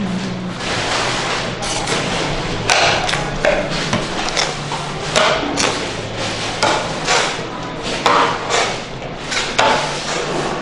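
A metal fudge paddle on a long wooden handle scraping and slapping hot caramel fudge against a slab table in irregular strokes, about two a second. The fudge is being creamed: folded and worked so the sugar crystals are rubbed down for a smooth texture.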